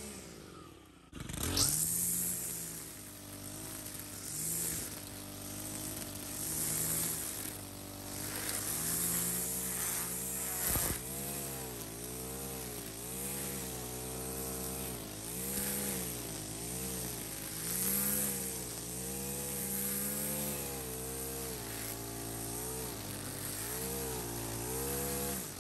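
Stihl FS 91 R string trimmer's 4-MIX engine running under load while its line head cuts tall, thick grass. The engine pitch rises and dips about once a second with each sweep. There is a short break about a second in, and a sharp click near the middle.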